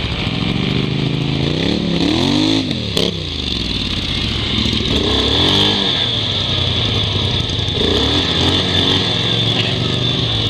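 ATV engines running while riding through snow, revving up and falling back three times as the quads accelerate and ease off, over a steady hiss. A single sharp click sounds about three seconds in.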